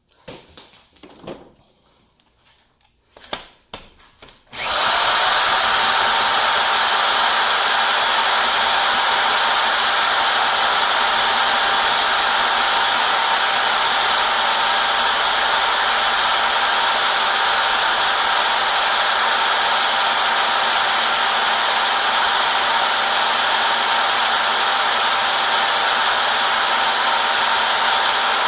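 Milwaukee 90-degree right-angle drill starting about four and a half seconds in and running steadily under load as it bores deeper into a padlock's core to reach the pins. A few light handling knocks come before it.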